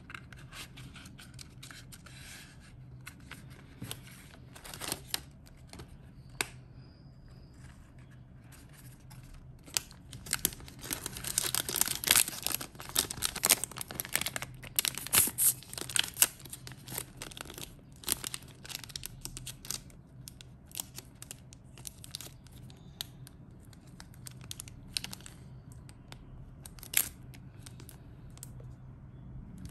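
Clear plastic packaging crinkling and rustling in the hands, with many small clicks and snaps, as a small paper box is wrapped back up in its cellophane. The handling is busiest and loudest from about ten to seventeen seconds in.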